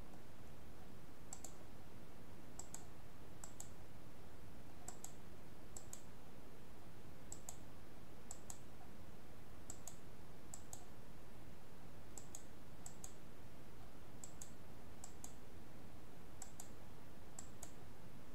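Computer mouse clicks, often in close pairs like a button press and release, coming about once a second while sketch lines are selected and trimmed, over a steady low background hiss.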